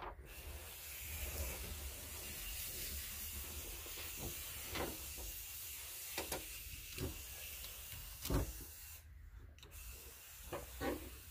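Amplifier power and ground cables being handled and routed beside a car battery: scattered light clicks and knocks of wire and terminals over a steady hiss.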